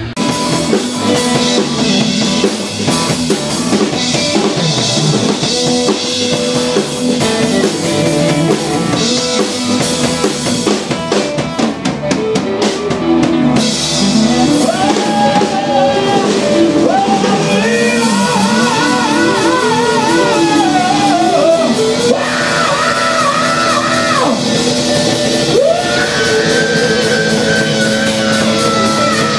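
Live rock band playing: drum kit and electric guitars, with a sung vocal line coming in about halfway through and held with a wavering vibrato in places.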